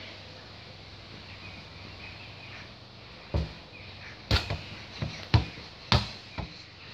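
A football being kicked and bouncing: a quiet few seconds, then about seven sharp thuds in quick succession from about three seconds in.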